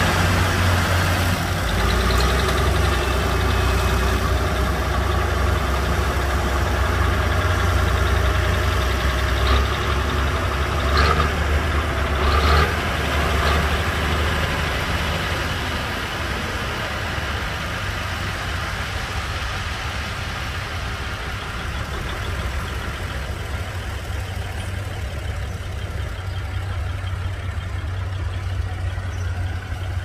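Komatsu crawler bulldozer's diesel engine running steadily, with a few short knocks a little before the middle; the engine settles somewhat quieter through the second half.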